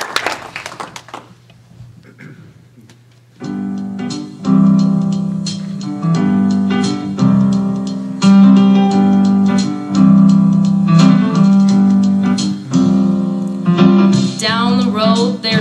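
Piano accompaniment starts about three seconds in, after the last applause has died away, and plays the introduction to a song. A singer's voice with vibrato comes in near the end.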